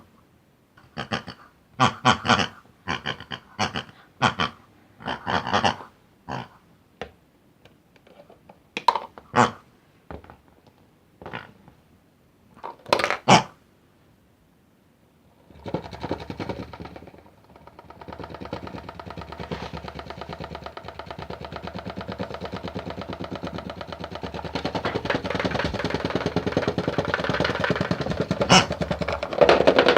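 A string of short pitched bursts, then about halfway a small electric motor starts and runs with a steady buzzing hum, growing louder near the end. The motor is typical of a toy washing machine running.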